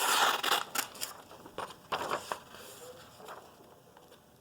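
A freshly sharpened knife blade cutting through material as a test of its edge: one long slicing stroke at the start, then several shorter, fainter cuts.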